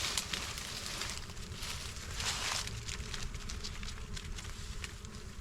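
Bees swarming and buzzing around a wild hive being smoked out, with a couple of brief bursts of rustling.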